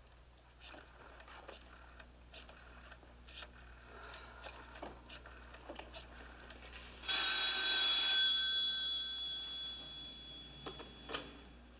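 A telephone bell rings once, about seven seconds in, for about a second, and its tone fades away over the next couple of seconds. Before it there are only faint scattered clicks and knocks.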